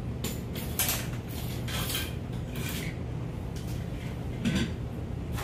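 Fishing rods knocking and clattering against one another in a rack as they are handled: a few scattered knocks over a steady low hum.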